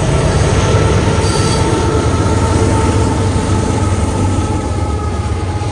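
Union Pacific diesel freight locomotives passing close, engines running with a loud steady rumble and a thin steady whine above it.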